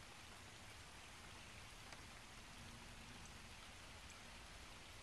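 Rain falling steadily on a pond's surface: a faint, even hiss with a few faint individual drop ticks.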